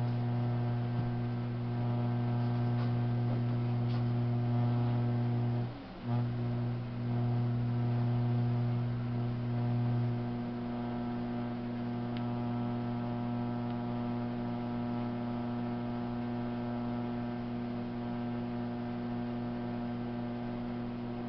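Electric potter's wheel motor humming steadily as the wheel turns. The hum drops out briefly about six seconds in, and its deepest tone weakens about halfway through.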